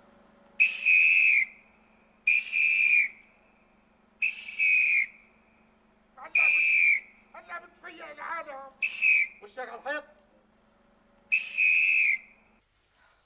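A police whistle blown in six short, loud blasts, each under a second long, about two seconds apart.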